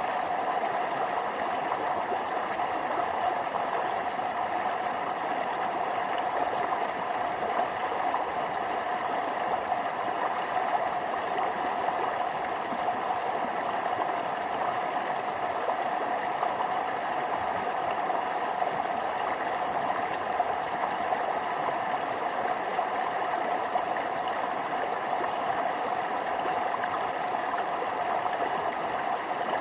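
Forest stream flowing steadily over small waterfalls, a constant even splashing of water.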